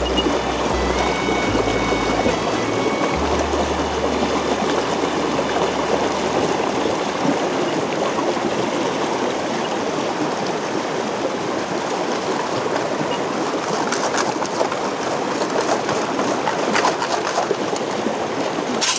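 Fast whitewater of a rocky waterfall stream rushing close to the microphone, a steady even rush of water. In the first few seconds a Minelab Vanquish 440 metal detector gives a few faint stepped beeps, and near the end come a few short splashes and knocks.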